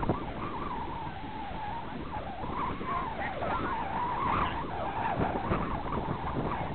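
Wind blowing over the camera microphone on an exposed ridge, an uneven low rumble with a faint wavering tone riding on it.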